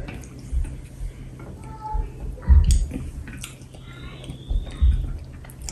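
Close-up chewing and mouth sounds of someone eating pounded yam and catfish pepper soup, with scattered small clicks and a few low thumps.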